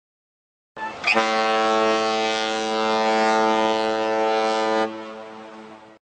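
Boat horn sounding one long steady blast of about four seconds, then cutting off and dying away over about a second.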